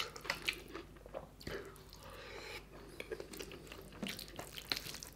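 Bare fingers mixing and squeezing rice into gravy curry on a steel plate: irregular wet squishing and small sticky clicks.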